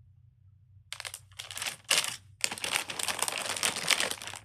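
Crinkling and rustling of plastic as fidget toys are handled. It comes in irregular bursts starting about a second in.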